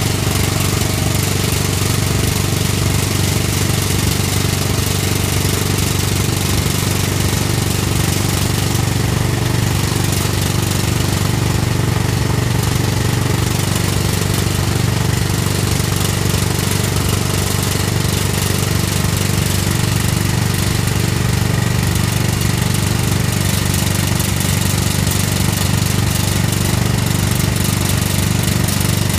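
Excavator-mounted hydraulic rock drill hammering steadily into rock over the constant running of the excavator's diesel engine.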